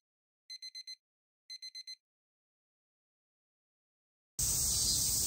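Electronic alarm-clock-style beeping, a quick group of four beeps about once a second, twice, then silence. About four seconds in, outdoor ambience cuts in with a loud steady high insect drone of summer cicadas.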